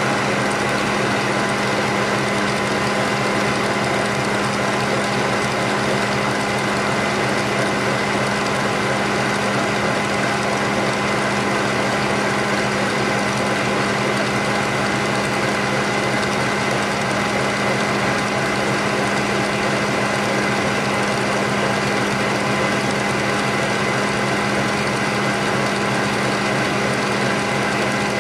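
Electric stand mixer whipping cream in a steel bowl, its motor and gears running steadily with a constant hum and whine.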